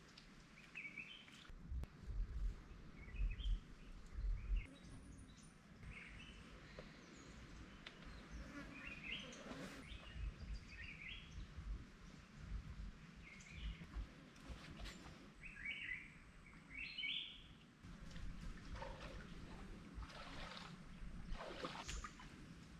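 Small birds chirping in short, scattered calls. There are a few dull low thumps between about two and five seconds in, and a few sharp knocks near the end.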